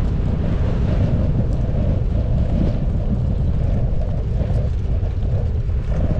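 Wind buffeting a GoPro action camera's microphone while riding a bicycle: a steady low rumble.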